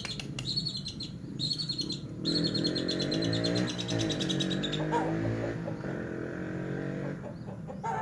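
Caged long-tailed shrike (cendet) singing a fast, high chattering trill in short bursts, then one longer run of about two and a half seconds starting about two seconds in. A lower droning sound runs underneath from about two seconds in.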